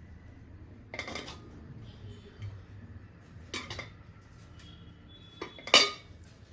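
Serving spoon scooping cooked rice, knocking and scraping against the pan and lunch box in three short clatters, about a second in, midway and near the end, the last one loudest, with a faint metallic ring after the middle one.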